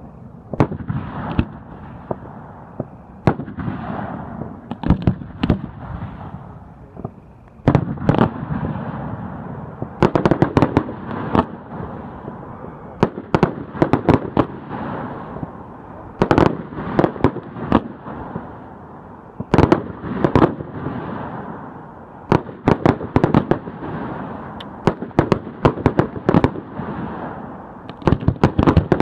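Aerial fireworks shells launching and bursting: many sharp bangs in quick clusters, with a low rumble carrying on between them.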